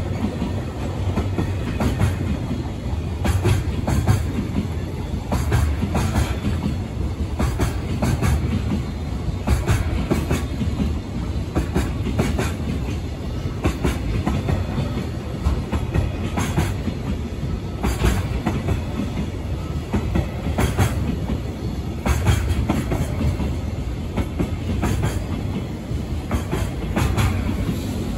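Container freight train's flatcars rolling past at close range: a steady low rumble of wheels on rail, with repeated clacks as wheel sets cross rail joints.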